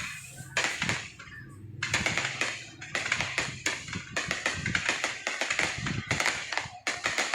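Fireworks crackling: a dense, rapid run of sharp pops and crackles, with brief lulls.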